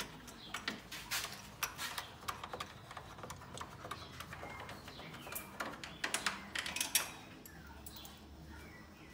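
Irregular light clicks and taps of small parts being handled and set in place by hand.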